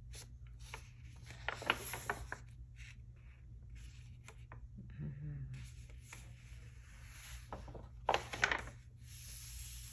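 Sketchbook pages being turned and handled: two spells of paper rustling, about a second and a half in and again about eight seconds in, with a few small taps between, over a low steady hum.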